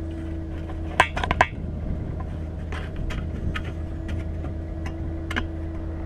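Metal clinks and scrapes of an antenna's U-bolt mounting bracket being fitted onto a mast pipe by hand: a quick cluster of sharp clinks about a second in, then scattered lighter clicks, over a steady low hum.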